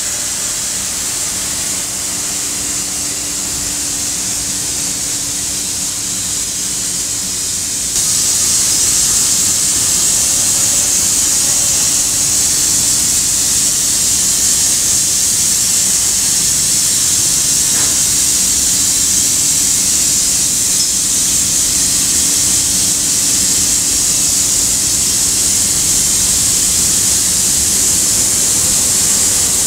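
Paint-spraying robots' rotary bell atomizers hissing steadily as they mist paint onto a car body, with a faint machine hum underneath. The hiss grows louder about eight seconds in.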